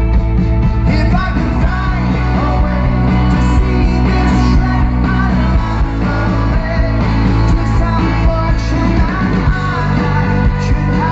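Rock band playing live: a man singing over electric guitars, heavy bass and drums, loud throughout.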